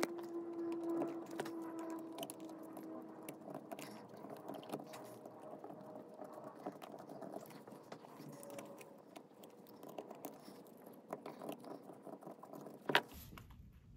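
Faint, quick light clicking and tapping of small metal carburettor parts and a screwdriver being handled while screws are fitted to a Solex 34 PICT carburettor, with a sharper click near the end.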